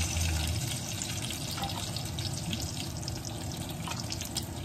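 Pork longganisa sausages frying in a skillet: a steady sizzling hiss of hot oil with many small crackles and pops.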